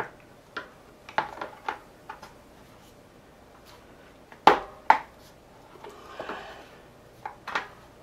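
Kool-Stop tire jack clicking and knocking against a bicycle rim as the bead of a tubeless mountain bike tire is levered over the rim edge a little at a time, with rubber rubbing between. Two sharp knocks about halfway through are the loudest.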